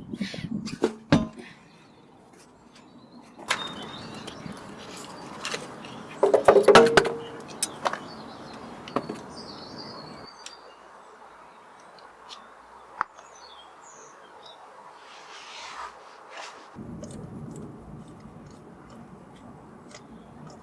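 Scattered clicks, knocks and metallic clatter of hand tools and parts during hands-on car work, loudest in a burst about six to seven seconds in, with faint birdsong in the background.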